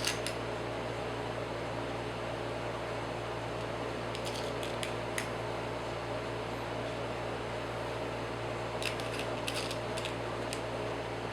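A steady mechanical hum, like a fan, runs throughout. Small light clicks of tiny lock pins being picked up and dropped into a Kwikset deadbolt's cylinder come at the start, in a cluster about four to five seconds in, and in another about nine to ten seconds in.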